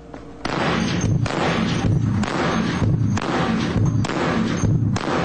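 Barrett M107 .50-calibre semi-automatic rifle firing in rapid succession: about six heavy shots a little less than a second apart, starting about half a second in. Each shot echoes into the next in an enclosed range.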